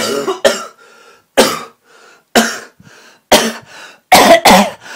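A person coughing hard and repeatedly, about seven coughs in quick succession with short breaths drawn in between.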